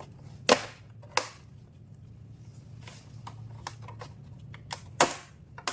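Sharp plastic clicks and snaps as an LED TV's plastic back cover is pried open, about five of them, the loudest about half a second in and about five seconds in.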